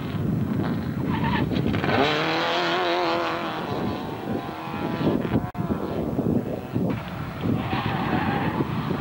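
Hill-climb race car engines revving hard through a hairpin. From about two seconds in, a wavering tyre squeal lasts for a second or so. The sound breaks off for a moment about halfway.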